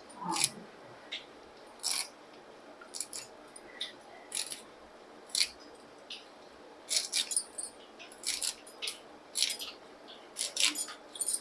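Tempering spices and dried red chillies crackling in hot ghee in a pan: irregular sharp pops, sometimes several in quick succession.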